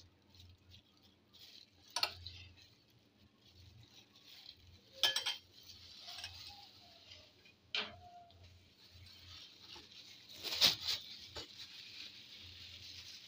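Ketchup squeezed from a bottle onto a wrap, with four short squirts and clicks about three seconds apart, the last the loudest. Near the end comes the crinkle of a plastic food glove handling the wrap.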